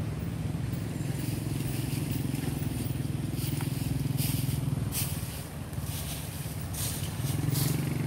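A small engine running steadily with a low, even hum, with dry leaves crackling now and then over it.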